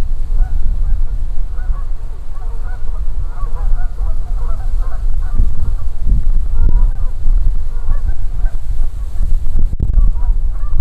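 A flock of tundra swans calling: many short, overlapping honking hoots from several birds at once, thickest in the first half, over a steady low rumble.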